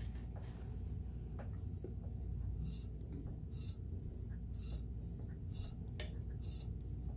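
A series of short hissing rubbing strokes, about two a second, over a low steady hum, with one sharp click about six seconds in.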